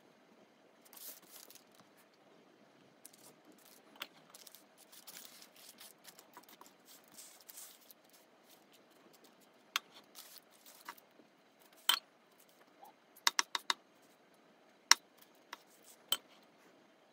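Metal offset spatula smoothing whipped cream over a cake top, with soft scraping and parchment rustling, then sharp clicks and taps as it scrapes and knocks against a glass mixing bowl, including a quick run of four and a louder tap near the end.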